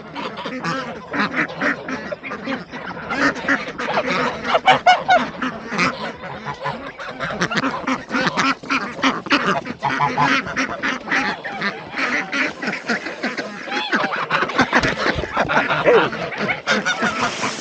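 A flock of domestic ducks and geese calling without a break, many overlapping quacks and honks.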